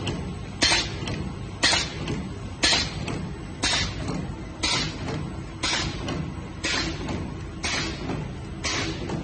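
Zipper bag making machine running in its cycle: a short, sharp stroke repeats evenly about once a second over a steady low machine hum.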